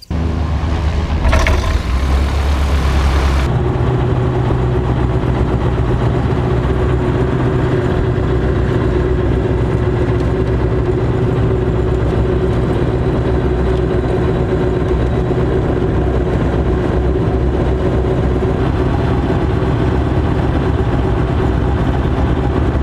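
An engine running steadily at a constant speed. A loud hiss lies over it for the first three and a half seconds and then stops.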